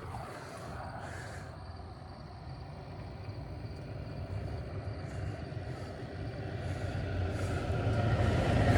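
A motor vehicle's engine rumbles low and steadily, growing louder toward the end as it approaches.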